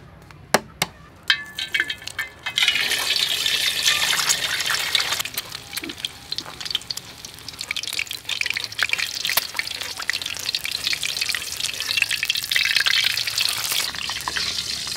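A few sharp taps, then an egg frying in hot oil in a wok: a dense crackling sizzle starts about two and a half seconds in and carries on, rising and falling in loudness.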